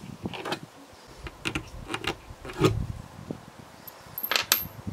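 A string of light clicks and taps as brass pins are lifted out of a steel knife tang resting on a wooden handle scale, with a duller knock partway through and two bright metallic clinks near the end.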